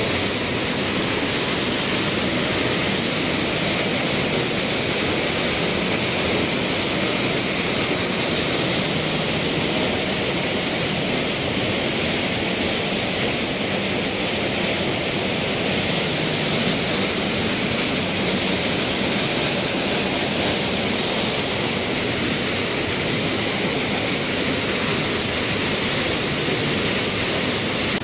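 Steady rush of a rocky mountain stream and waterfall, an even hiss of falling water that does not change.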